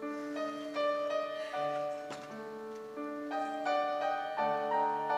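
Piano music playing a gentle introduction to a song: held chords changing about every second, with a melody line above them.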